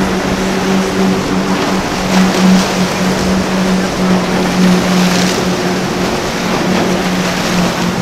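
Outboard engines of a Freeman sport-fishing catamaran running with a steady drone as it pushes through choppy inlet water, over the constant rush and splash of waves and wake.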